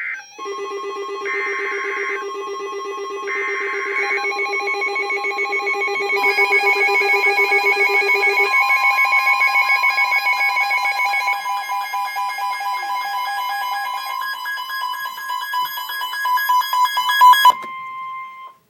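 Electronic alert tones of an Emergency Alert System tornado warning: several beeping and warbling alarm tones at different pitches sound together, some pulsing on and off, with a steady single warning tone joining about halfway through. Most of the alarms cut off suddenly near the end, and the steady tone stops a second later.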